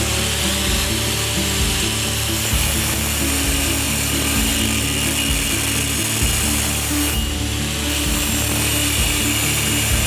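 Angle grinder with a thin cutoff wheel running steadily as it cuts through square steel tubing, a continuous grinding hiss with a steady whine, over background music.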